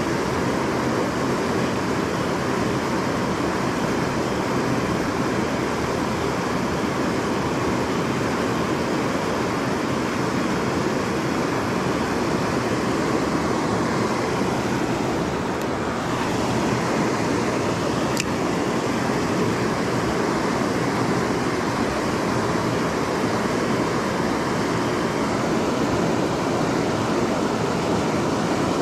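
Steady rush of river water pouring over a low weir.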